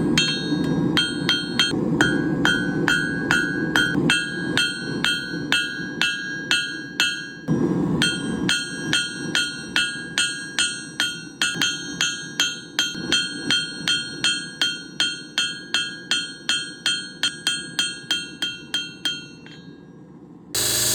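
Blacksmith's hammer striking hot round steel stock on an anvil, about two blows a second, each with a bright metallic ring; a brief pause about a third of the way in, and the hammering stops near the end, followed by a short burst of loud noise.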